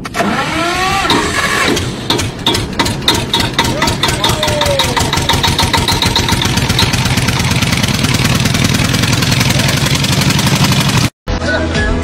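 An engine running, its firing a rapid, even pulse, with a few rising and falling tones over it in the first seconds.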